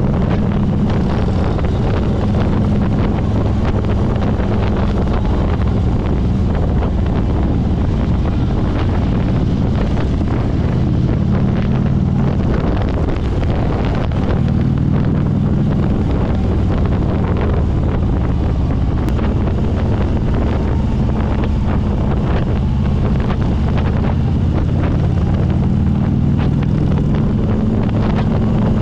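Harley-Davidson V-twin motorcycle engine running at road speed, its low note rising and falling a little with the throttle, under steady wind noise on the microphone.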